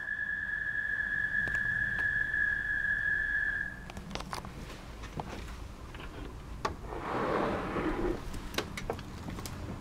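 A very loud, steady, high-pitched call from an unidentified backyard animal, taken for a bug or a frog. It holds one pitch, then stops about four seconds in, leaving scattered clicks and a brief rustle around seven seconds in.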